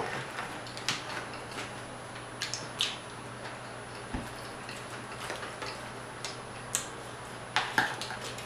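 Crispy fried croaker's crunchy coating crackling and snapping as it is broken apart by hand and eaten: scattered sharp crackles and clicks at an uneven pace.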